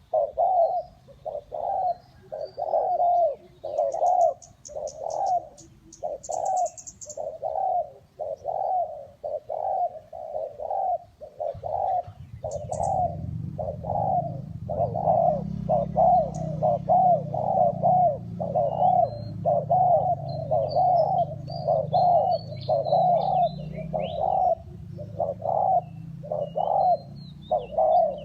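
Spotted dove cooing over and over, a steady run of low coos about one a second. Other small birds chirp faintly, and a low steady rumble comes in about twelve seconds in.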